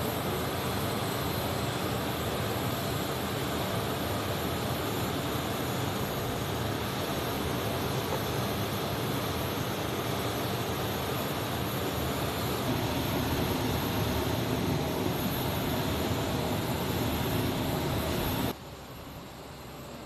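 Steady jet turbine noise from a C-17 Globemaster III on the ramp: an even rush with a thin high whine, cutting off suddenly near the end.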